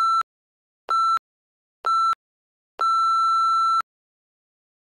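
Workout interval timer beeping: three short beeps a second apart, then one long beep at the same pitch, counting down the end of a work interval into the rest period.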